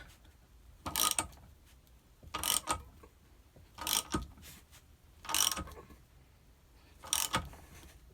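Ratchet wrench with a 24 mm socket clicking in five short bursts about a second and a half apart, as it is swung back between strokes turning the centre bolt of a flywheel puller. The engine turns over with the bolt instead of the flywheel pulling off.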